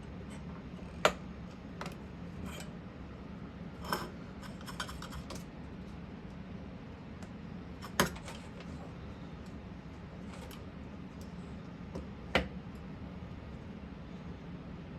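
Scattered small clicks and clinks of tools and parts being handled on a workbench, the sharpest about a second in and about eight seconds in, over a steady low hum.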